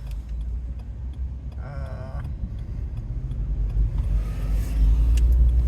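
Low rumble of a car's engine and tyres heard from inside the moving vehicle, growing louder about four seconds in as it picks up speed. A short wavering voice-like sound comes about two seconds in.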